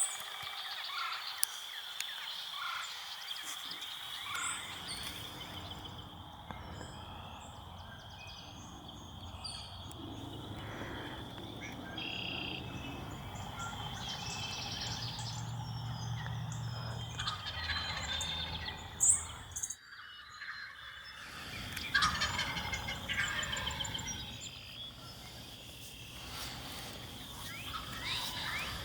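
Wild turkey gobbling several times, the loudest gobbles about two-thirds of the way through, over a chorus of songbirds chirping.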